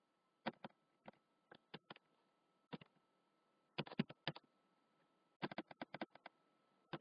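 Faint computer keyboard typing: irregular clusters of short keystroke clicks with pauses between them.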